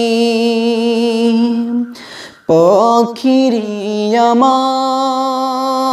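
A man sings a Bengali Islamic gojol solo, with no instruments. He holds a long steady note, breaks briefly about two seconds in, then sings the line 'pakhire' with sliding, ornamented pitch and settles into another long held note.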